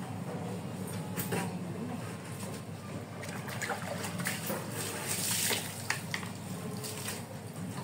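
Water scooped from a plastic basin with a dipper and poured over a wet dog, splashing and trickling, with a louder pour about five seconds in.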